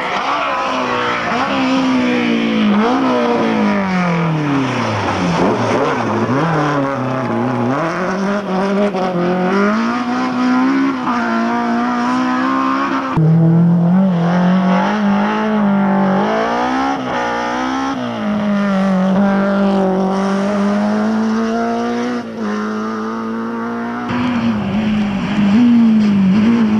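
Rally car engine revving hard, its pitch climbing and dropping again and again as the car accelerates, shifts and slows for corners. The sound changes abruptly twice, about halfway and near the end.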